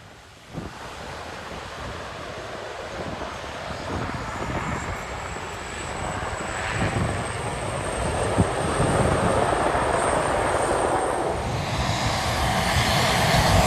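An airplane approaching to land, its engine noise growing steadily louder, with a faint high whine that rises slightly in pitch partway through.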